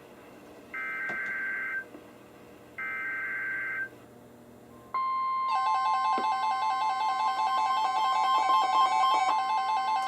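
NOAA Weather Radio SAME header data bursts: two one-second screeches of two-tone digital data a second apart. About five seconds in, the steady 1050 Hz warning alarm tone starts, signalling a new warning. Half a second later a weather radio receiver's own alert beeping joins it in a fast repeating pattern.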